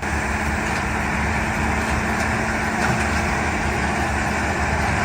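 Heavy machine's diesel engine running steadily, with a constant low hum and no change in load.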